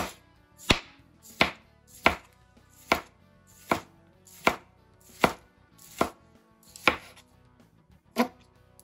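Chef's knife slicing a tomato into rounds and knocking on a plastic cutting board, about ten even cuts, a little under a second apart.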